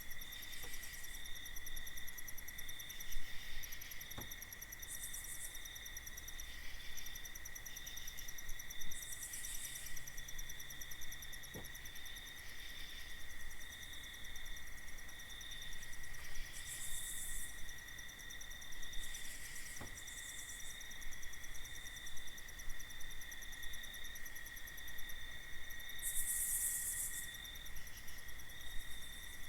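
Night insect chorus: crickets trilling steadily, with a rapidly pulsing higher layer and a few short bursts of higher buzzing every several seconds. Three faint ticks sound along the way.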